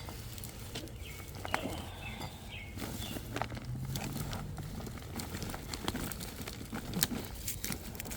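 Hands digging and rummaging through loose soil and compost, pulling up potato roots: steady rustling with many irregular small clicks and knocks.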